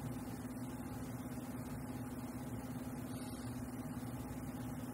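Steady low background hum at a constant pitch over a faint hiss, with no distinct events.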